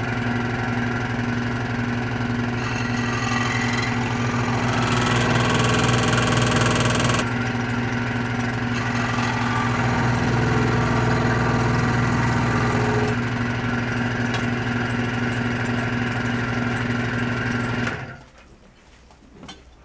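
Electric power tool running steadily while shaping a piece of melted HDPE plastic, with a harsher cutting hiss for a couple of seconds in the middle; it shuts off about eighteen seconds in.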